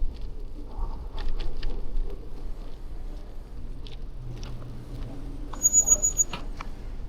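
Bicycle riding on a snowy street: a steady low rumble of tyres and wind, with scattered light clicks and rattles. A brief, high-pitched steady whine comes about six seconds in, among a cluster of clicks.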